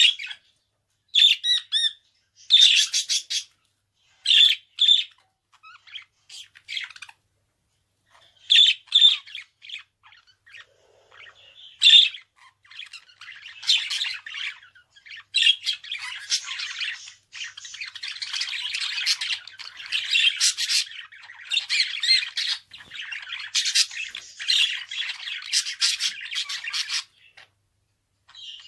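Budgerigar calling: sharp, separate chirps and squawks with pauses between them, then a long run of continuous chattering warble that breaks off shortly before the end.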